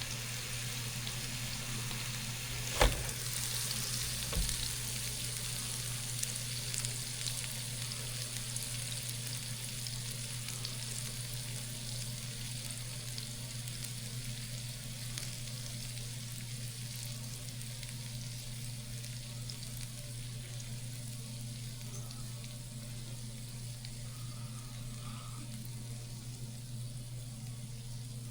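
Chicken-and-lamb patty sizzling on a George Foreman contact grill: a steady hiss with a low hum under it. A sharp knock comes about three seconds in, and a softer one shortly after.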